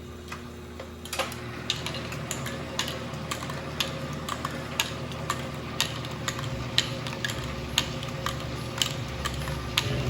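Glass lathe being used as a paint shaker: its drive hums steadily from about a second in, while sharp, irregular clicks and knocks from the shaken paint can come one or two a second.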